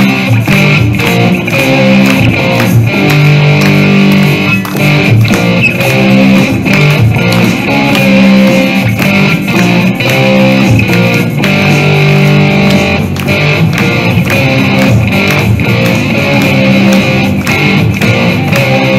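Electric guitar played live through an amplifier: a rock piece of held, pitched notes over a steady beat.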